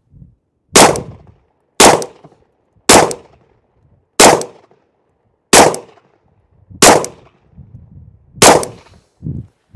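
Seven 9mm shots fired one at a time at a slow, steady pace, roughly one every second or so, from a Sig P320 pistol set in a Flux Raider X carbine chassis; each crack trails off in a short echo.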